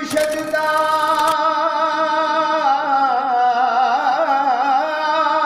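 Background music with a singing voice holding long, wavering notes, and a brief hiss over it in the first second or so.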